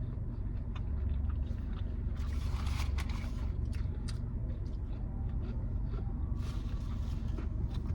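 Steady low hum of a car's idling engine, with scattered scrapes, rustles and chewing of someone eating a hot dog.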